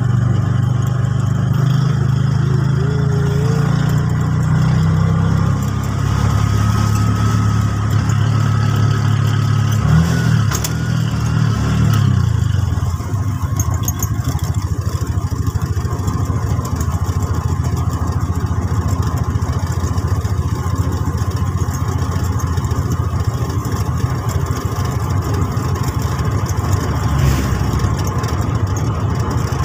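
A motor vehicle's engine running. For the first dozen seconds or so its low hum shifts in pitch, then a steady rushing road noise takes over.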